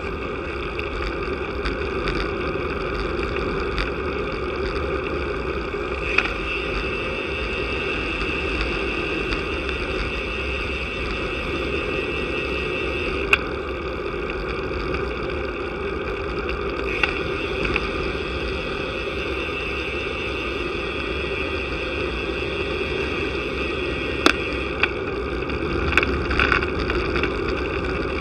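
Steady wind and road noise on a bicycle-mounted camera while riding a road bike, with a few sharp knocks from bumps in the road.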